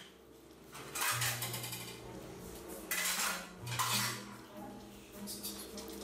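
Metal kitchen utensils clattering against pots and pans in three short bursts, about one, three and four seconds in, with faint background music under them.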